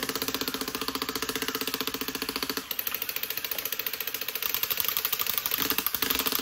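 Rapid, steady mechanical clicking of a toy's ratcheting mechanism, many clicks a second.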